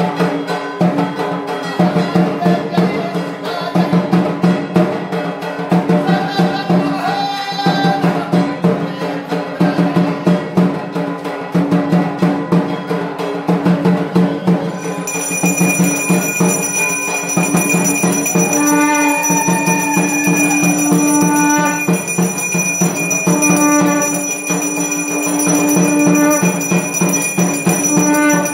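Aarti music: fast drumming and clanging bells with a melody line over them. About halfway through, a steady high ringing joins in and runs on under held melody notes.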